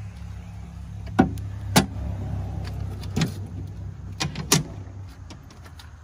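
A vehicle engine idling with a steady low hum. Five sharp clunks sound over it, the last two close together.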